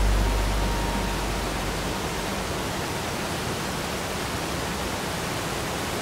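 A waterfall's steady, even rush of falling water. The tail of background music fades out under it in the first second or two.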